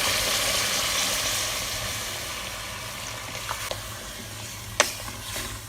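Hot oil and spiced chicken-and-potato masala sizzling as water is added to the pot; the sizzle is loudest at first and dies down over a few seconds as the water cools the pan. A single sharp knock near the end.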